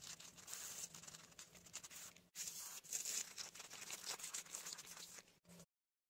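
Gloved fingers scraping and crumbling dry soil in a small hole: a faint, dense scratching and crackling that breaks off briefly a little after two seconds and cuts off suddenly near the end.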